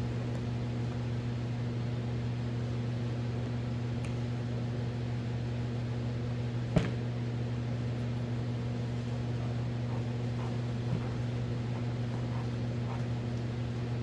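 A steady low hum from running equipment in the shop. A single sharp knock comes about seven seconds in, and a fainter one near eleven seconds.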